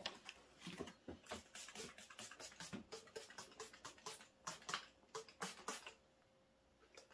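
Hand trigger spray bottle squirting soapy water over the engine, many quick sprays about three a second, stopping about six seconds in: a soapy-water check for air leaks on the pressurised crankcase.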